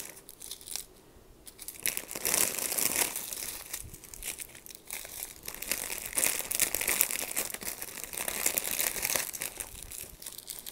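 Clear plastic bags of square resin diamond painting drills crinkling and rustling as they are handled, mostly from about two seconds in.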